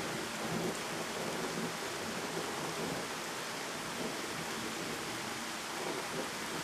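Heavy rain pouring steadily, with a low rolling rumble of thunder that is strongest in the first second or so and then dies down.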